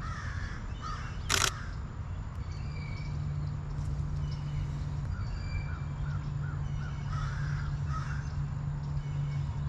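A single camera shutter click about a second and a half in, with birds calling in the background and a low steady hum throughout.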